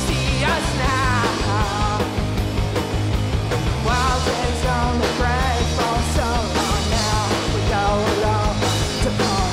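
Rock band playing live: a woman singing lead over electric guitar, bass and drums.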